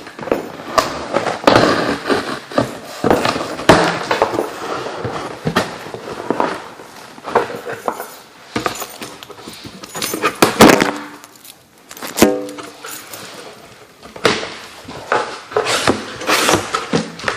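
Cardboard shipping box being torn open by hand: packing tape and flaps ripped and pulled, with rustling, scraping and sharp knocks and clicks as the box and its contents are handled.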